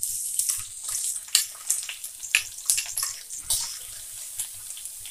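Chopped onion sizzling in hot oil in a kadai as it is tipped in and spread out, with sharp clicks and scrapes from the spatula on the pan. After about three and a half seconds the clicks stop and the sizzle settles to a steady hiss.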